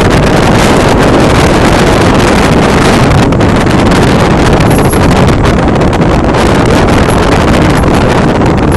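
Renault Mégane II RS driving, with loud road noise and wind buffeting the microphone. A few faint, brief high squeaks come in the second half. This is the small squeak over each bump from the front left suspension, which persists though the ball joints show no play.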